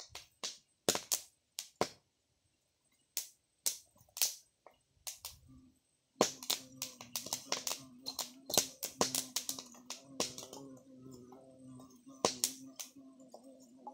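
Open wood fire crackling, with irregular sharp pops and snaps while corn roasts in it. From about six seconds in, a steady low hum runs underneath.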